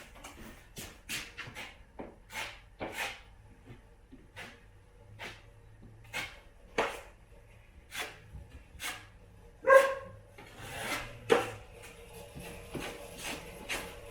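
Hand tools working on drywall: a run of short, irregular scrapes and taps, with one louder ringing metal clink about two-thirds of the way through.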